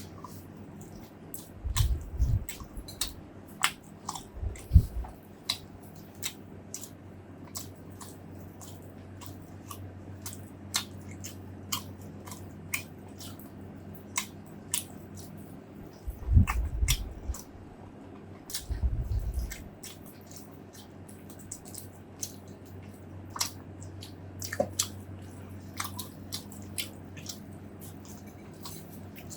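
Close-miked eating: biting and chewing, with many short, crisp clicks and a few dull low thumps.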